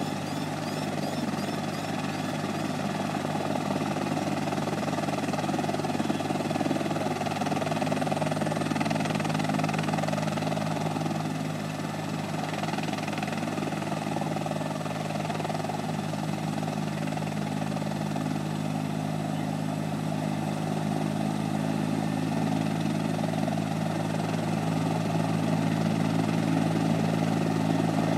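An engine running steadily at a constant pitch, a continuous low hum with a few faint steady high tones above it.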